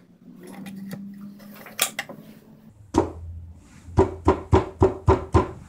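A run of about six sharp, ringing knocks in quick even succession near the end, after a single knock and, earlier, a low steady hum with a few soft clicks.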